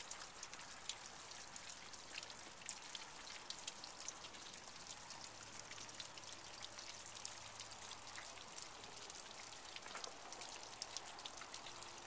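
Water seeping out of a wet limestone bluff face, dripping and trickling faintly in many small, irregular drips.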